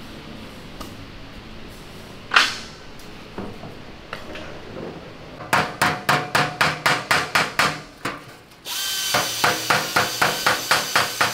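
Ball-peen hammer striking a sheet-steel tank mudguard in quick, even blows, about five a second, shaping it for a headlight mount. There is one sharp clang a couple of seconds in, and from about three-quarters in a steady mechanical whine runs under the hammering.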